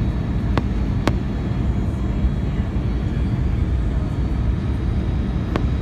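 Steady low rumble of an Airbus A320's engines and airflow heard inside the cabin during the descent, with a faint high whine above it. Three short sharp clicks stand out: two in the first second or so and one near the end.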